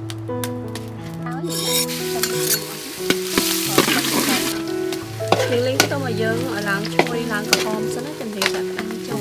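Minced garlic sizzling in hot oil in a steel wok, the hiss swelling about a second and a half in, with a metal spatula scraping and clicking against the wok as it is stirred. Soft instrumental music plays underneath.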